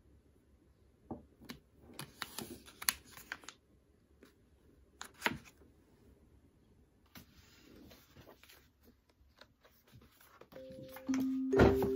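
Quiet handling of cosmetics packaging: a plastic refill pouch crinkling and small clicks as a spray bottle is handled and set down on a table, with one sharp click a little before the middle. Near the end, light chiming music begins.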